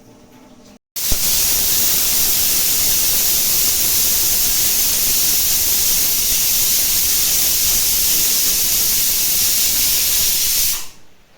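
Pressure cooker letting off steam through its whistle weight: a loud, steady hiss that starts abruptly about a second in and fades away near the end, as the peas cook under pressure.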